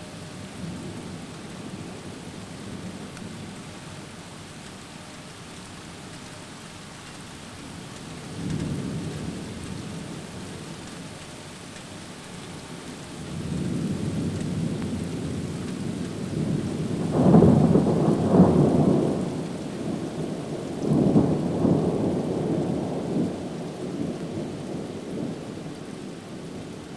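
Thunder over steady rain during a thunderstorm: a short low rumble about a third of the way in, then a longer rolling peal that builds, peaks loudest a little past the middle with a second peak soon after, and dies away.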